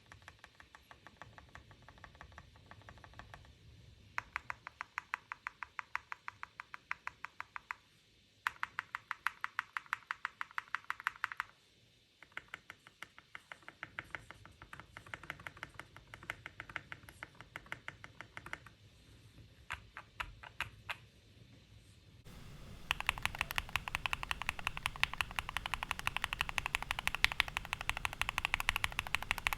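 Keychron Q1 mechanical keyboard with lubed, filmed Durock Lavender switches being typed on in bursts of rapid keystrokes with short pauses between them. About three-quarters of the way through, a louder, faster run of keystrokes begins.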